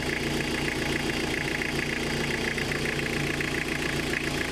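Diesel engine idling steadily with its oil filler cap lifted off the valve cover, an even ticking clatter heard close at the open filler. This is the crankcase blow-by check for worn rings and bores: smoke or oil pushing up out of the filler would mean a worn engine.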